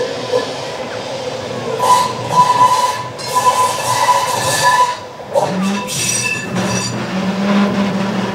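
Double-deck electric tram no. 399 running on rails, its wheels squealing with a high steady tone for a few seconds, then a lower steady tone in the second half over the rumble of the running gear.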